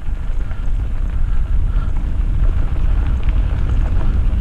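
Wind buffeting the microphone of a moving mountain bike rider in a heavy steady low rumble, with a few faint scattered rattles.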